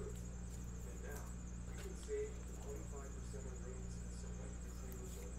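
Quiet room tone: a steady low electrical hum and a faint steady high-pitched whine, with a few faint clicks about two seconds in.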